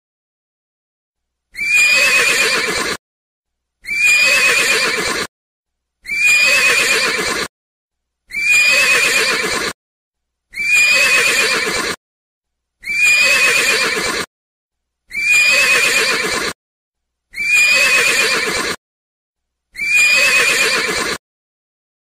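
Horse whinnying: nine identical neighs at even intervals about two seconds apart, each about a second and a half long, starting high and falling away, with silence between them.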